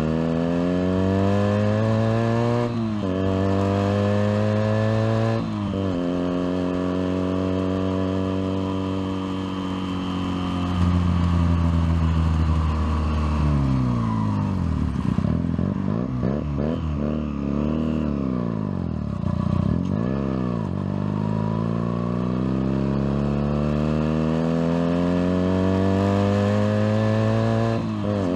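Junak M11 Cafe motorcycle engine riding through traffic: the revs climb and drop sharply at two upshifts in the first six seconds, hold at a steady cruise, fall and pick up again a few times in the middle as the rider eases off, then climb through the gears once more toward the end.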